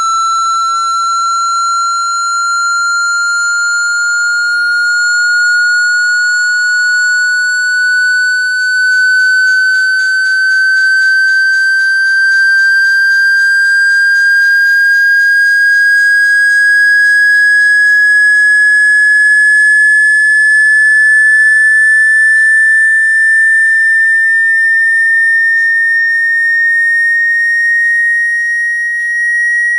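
Loud electronic sine-wave tone, one pure high whistle gliding slowly and steadily upward in pitch: a frequency sweep played through a phone's speaker to vibrate water out of it.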